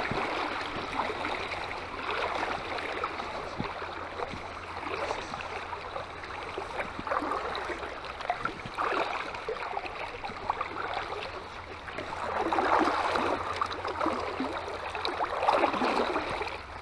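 Creek water flowing steadily over a shallow riffle, an even rushing and burbling, that swells louder twice near the end.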